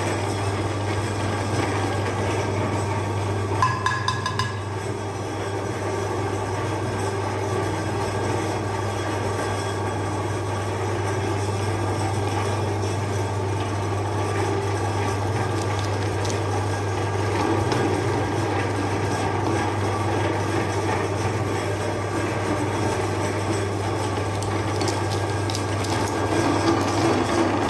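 Electric meat grinder running steadily, its motor giving a constant low hum while the steel auger turns in the hopper throat. There is a brief metallic clink about four seconds in, and the grinding grows a little fuller near the end as ice cream pieces go into the hopper.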